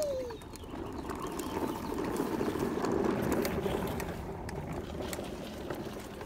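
Hard plastic wheels of a toddler's ride-on toy truck rolling over rough asphalt. The gritty rolling noise swells for a few seconds and then tapers off.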